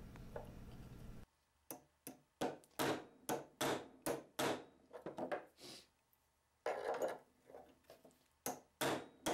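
Mallet blows on the end of a table saw's steel arbor, about three a second with a short pause past the middle, driving a worn arbor bearing off the shaft. An open-end wrench clamped beneath the bearing takes the blows on its inner race.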